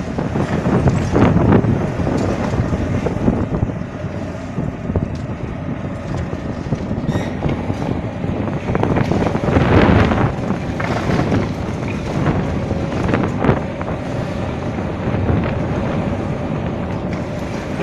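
Hitachi ZAXIS 870 high-reach demolition excavator working on a concrete tower block: the diesel engine runs steadily while concrete crumbles and rubble falls now and then in louder rushing swells, with wind buffeting the microphone.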